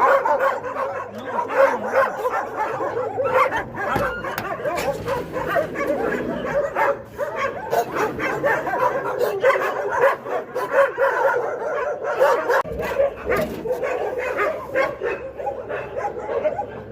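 Many dogs barking, yelping and whining over one another without a break.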